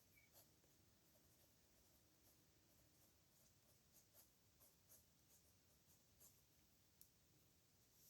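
Pen scratching on paper in a series of faint, short, irregular strokes as someone writes by hand.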